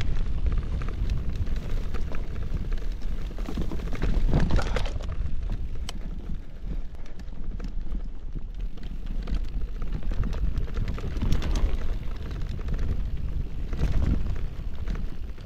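Wind rumbling on the microphone over the rumble and crackle of mountain-bike tyres on a rough, stony trail. There are bursts of rattling and clattering a few times, the loudest about four seconds in.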